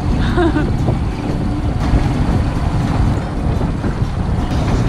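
Wind buffeting the camera microphone on a sailboat under way: a loud, steady, low rumbling roar, with the wash of water along the hull beneath it.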